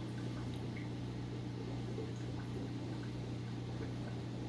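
Aquarium air pump humming steadily, with faint bubbling and small pops from the air-lift of a sponge (matten) filter.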